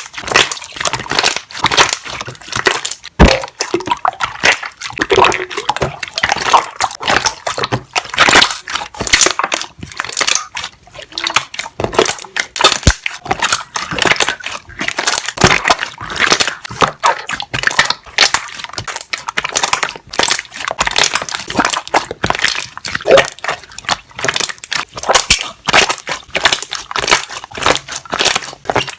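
Slime being squeezed and pressed, its trapped air bubbles popping in a continuous run of sharp, crackly clicks.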